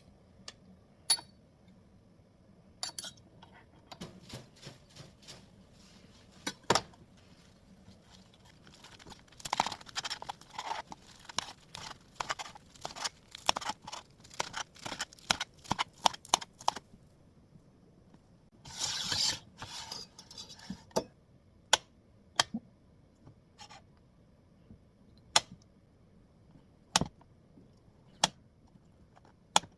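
Kitchen handling sounds: scattered clicks and light knocks, a busy stretch of rustling and clinking in the middle, a short rustling burst, then single sharp taps every second or so.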